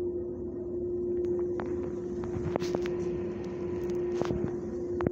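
A steady machine hum, with a few sharp clicks a little past the middle.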